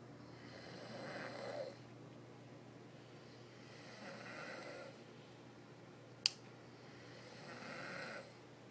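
A person snoring: three snores, each lasting about a second, roughly three and a half seconds apart. A single sharp click falls between the second and third.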